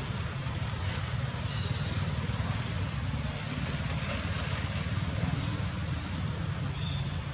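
Steady outdoor background noise: a constant low rumble with an even hiss over it and no distinct events.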